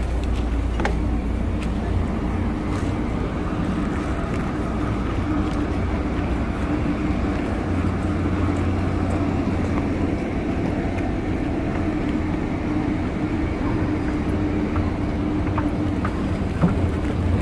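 Steady low rumble and hum of a train standing at a station platform, with a few faint clicks near the end.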